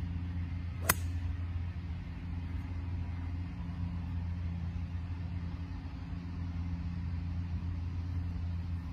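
A single sharp click about a second in: a 4 hybrid club striking the golf ball on a full swing. Under it a steady low rumble.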